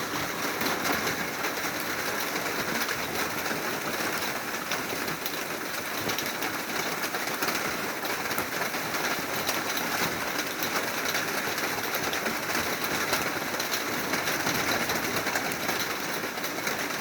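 Steady heavy rain falling, a dense patter of drops without let-up.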